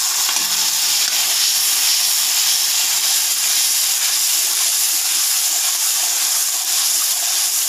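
Ground wet spice paste frying in hot oil with fried onions in a kadhai, sizzling steadily.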